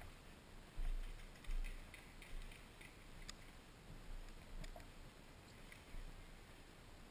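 Faint, scattered clicks of distant airsoft gunfire, with two low thumps, about a second in and again half a second later.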